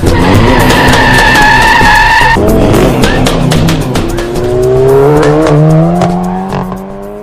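Car tyres screeching for about two seconds, then a car engine revving, its pitch rising steadily as it accelerates away, over music with a steady beat.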